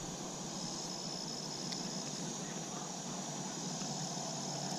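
Steady, high-pitched insect chorus, with a thin continuous high note that fades out and comes back a couple of times.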